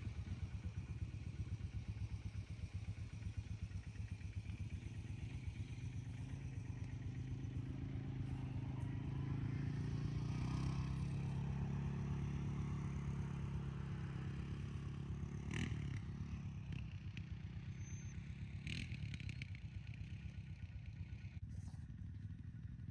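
A small engine running steadily, picking up and growing louder about halfway through, then easing off, with a couple of short clicks or knocks in the later part.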